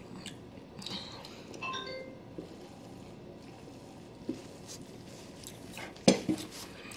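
Quiet sipping of soda through a straw from a can, with swallowing. A brief ringing tone comes about two seconds in, and a sharp knock on the wooden table near the end.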